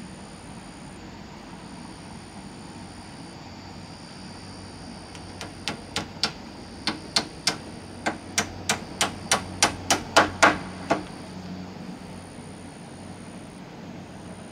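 Hammering: about sixteen quick blows, two to three a second, growing louder toward the end.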